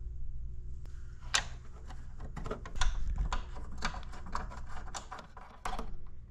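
Irregular metal clicks and knocks as a monitor's VESA bracket is handled and fitted onto the arm of a dual-monitor wall mount, starting about a second in, over a low steady hum.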